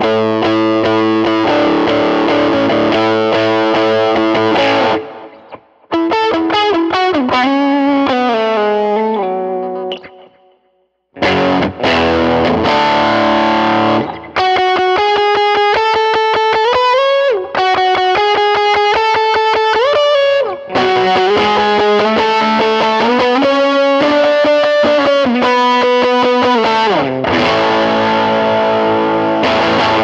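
Fender Stratocaster played through a Line 6 HX Stomp overdrive preset with delay and reverb. Ringing chords come first, then single-note lead lines with string bends, with short pauses about five and ten seconds in.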